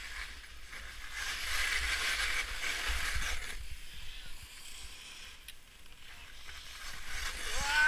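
Skis hissing and scraping over snow, loudest for the first few seconds of the run down the slope and then easing off. Wind rumbles on the microphone throughout, and a voice starts near the end.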